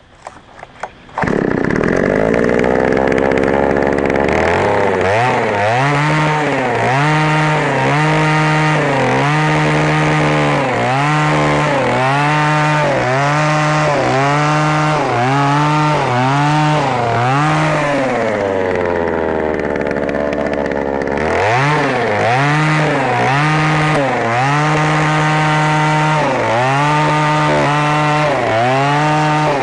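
Oshima 2PS earth auger's 54 cc two-stroke engine starts about a second in, then runs hard, its speed rising and falling about once a second as the auger bores into the ground. About two-thirds of the way through it drops back to idle for a few seconds, then revs up again.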